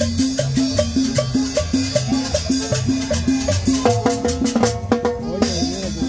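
Latin dance music with a steady, repeating bass and percussion beat. About four seconds in, held melody notes and gliding lines join it.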